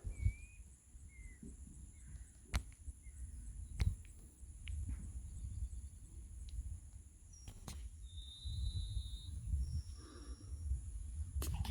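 Natural outdoor ambience: a steady high-pitched insect drone, with a few short bird chirps near the start and a brief bird trill and whistle about eight to ten seconds in. Scattered sharp clicks and a low rumble run underneath.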